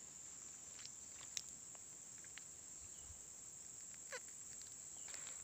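Steady high-pitched insect drone, with a few faint clicks and a brief falling squeak about four seconds in.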